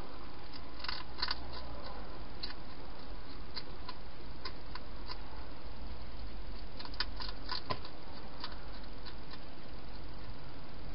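Wild hedgehog feeding at a bowl inside a plastic feeding box: irregular sharp clicks of eating, clustered about a second in and again a few seconds before the end, over a steady hiss and low hum.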